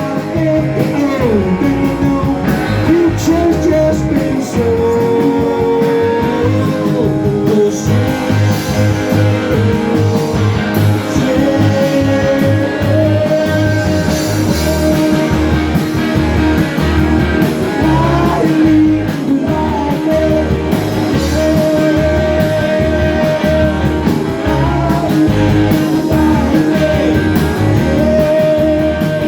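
Live rock band playing an instrumental passage: electric guitar lead lines over a steady bass and drum beat.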